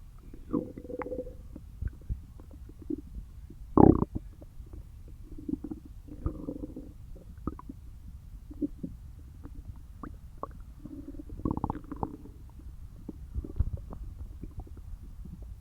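Human stomach gurgling and growling while empty after a day without food: short bubbly gurgles and clicks, with several brief low growls and the loudest gurgle about four seconds in.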